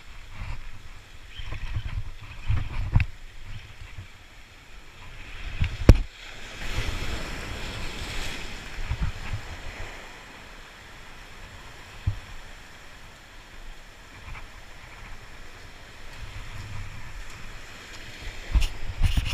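Sea waves washing against a rock jetty, with irregular low bumps of wind or handling on the microphone. A sharp knock comes about six seconds in, followed by a louder surge of surf lasting a few seconds.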